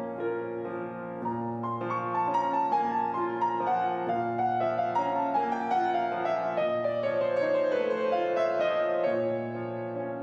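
Solo classical playing on a Yamaha concert grand piano: a melody that steps gradually downward in pitch over flowing accompaniment, with a low bass note struck every few seconds. It swells through the middle and grows softer near the end.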